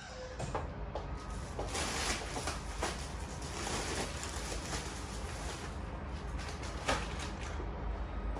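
Household handling noise: things being moved and set down, with scattered knocks and clicks and one sharp click about seven seconds in, over a low hum.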